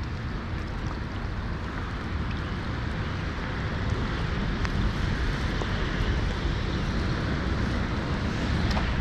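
Wind buffeting the microphone over a steady hiss of rain falling on the river, slowly growing louder.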